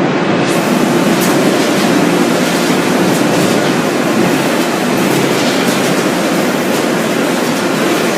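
French fries production-line machinery running steadily: a dense, even mechanical noise with faint scattered clicks.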